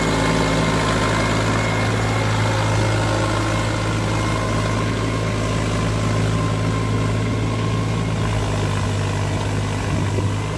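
Farm tractor's diesel engine running steadily while the tractor tills a flooded paddy field on iron cage wheels.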